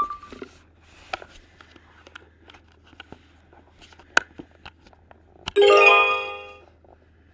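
Electronic toy book: scattered faint clicks of its plastic being handled, then about 5.5 seconds in a short bright electronic chime from the toy's speaker that fades out over about a second.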